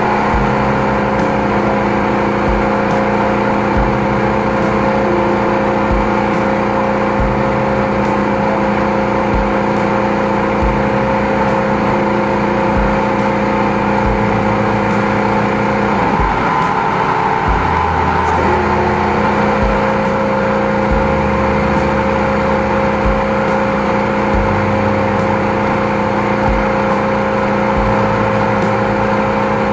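High-pressure sewer jetter's engine-driven pump running steadily while the jetting hose is worked down a grease-clogged drain, with a brief dip in pitch about halfway through before it settles back.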